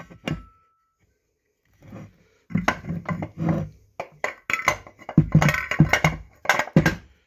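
The two metal sheaves of an Arctic Cat reverse-cam snowmobile secondary clutch clinking, knocking and scraping against each other as the halves are fitted together. It is an irregular run of metal knocks and short rings, starting about two and a half seconds in.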